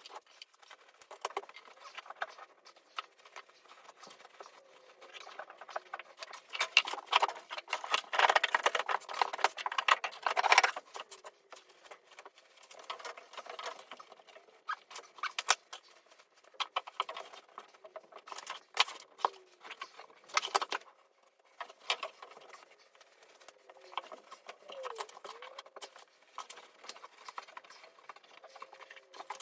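Acoustic insulation being handled and packed in under a bath: irregular rustling, scraping and small knocks, busiest about seven to eleven seconds in.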